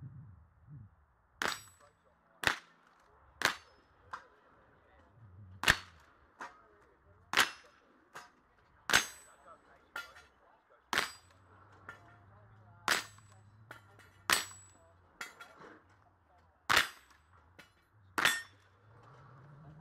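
A .22 rimfire rifle firing a string of about a dozen shots, one every one to two seconds, some followed by a short high ring as the bullets strike steel targets.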